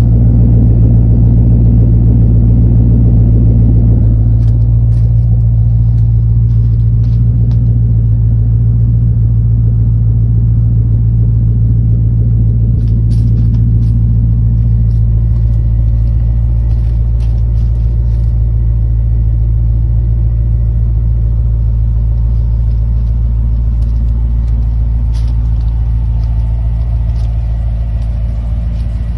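Classic Ford Mustang engine running at a steady idle with a low rumble, slightly louder for the first few seconds.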